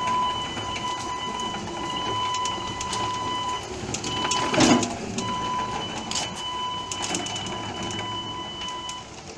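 Small electric motors of a homemade RC snow blower whining steadily with a gear whir as it drives itself across asphalt, with scattered clicks and rattles. The whine cuts out briefly twice around the middle, where a louder rattle is heard.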